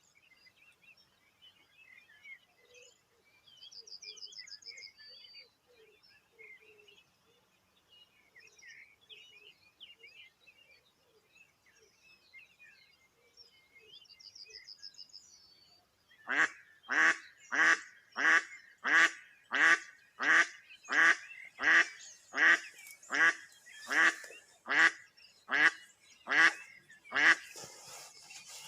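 Live decoy duck quacking in a long, loud series of about eighteen quacks, a little over one a second, starting past the middle. Before it, faint songbirds calling, with two short high trills.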